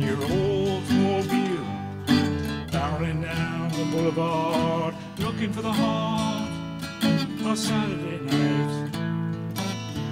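Two guitars, an archtop and an acoustic, playing an instrumental passage of a country-style song.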